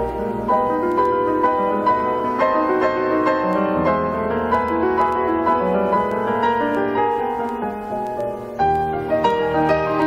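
Instrumental music led by piano, with a deep bass part that comes in about four seconds in.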